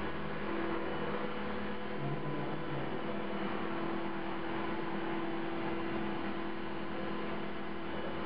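Electric CopterX 450 SE V2 RC helicopter running steadily with a buzzing hum from its motor and rotor head. It has been crashed and its main blades are out of track, which the owner puts down to bent blades and hopes is not a bent blade holder or feathering shaft.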